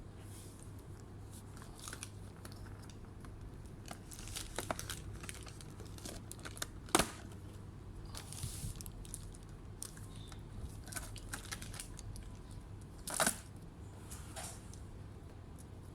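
Plastic being handled, crinkling and tearing, with scattered light clicks and two sharp snaps, about seven seconds in and again near thirteen seconds.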